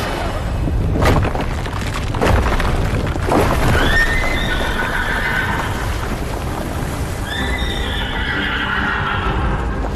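A few heavy thuds as blasts throw up earth, then galloping horses with a low rumble of hooves. A horse whinnies long twice, first about four seconds in and again about seven seconds in.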